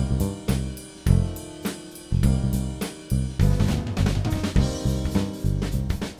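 Background music with a drum kit keeping a steady beat over bass and chords.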